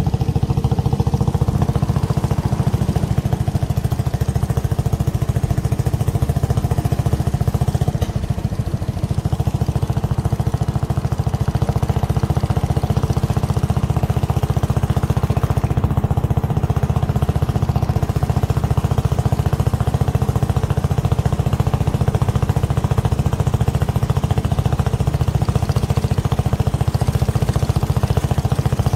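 Small boat engine running steadily at cruising speed, a constant low, fast-pulsing drone with a steady hum above it.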